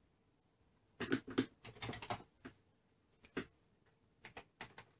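Short sharp clicks of keys being pressed on a Commodore 64 keyboard, a few in quick succession near the end, with single clicks before them. About a second in there is a louder, unclear noise lasting a little over a second.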